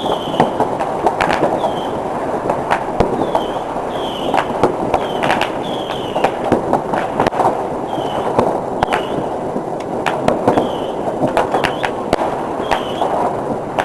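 Crowd clapping, with short whistles near the top of the sound, each one dipping slightly in pitch, repeated about a dozen times.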